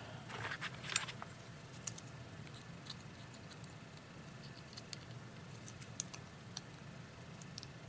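Faint, scattered small metallic clicks and light scrapes of a lock and small tools being handled at the start of its disassembly.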